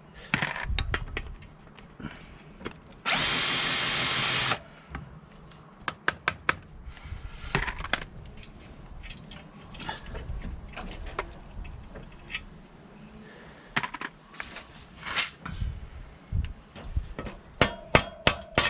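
A power tool runs steadily once for about a second and a half, a few seconds in. Around it come scattered metallic clicks and clinks of hand tools, nuts and spring washers being handled while the front fork spindle clamps are changed.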